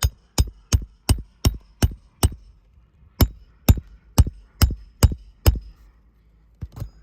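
Hammer striking metal on an asphalt-shingle roof repair, each blow ringing. There are seven quick strikes about three a second, a short pause, then six slower strikes, and two lighter taps near the end.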